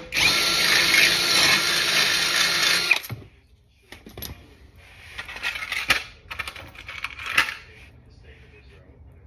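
Power drill boring a hole for a rivet nut through a metal bracket, running steadily for about three seconds and then stopping. Light clicks and rattles follow.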